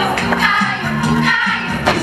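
Upbeat folk dance music with singing, played through a stage sound system, with a sharp percussive hit near the end.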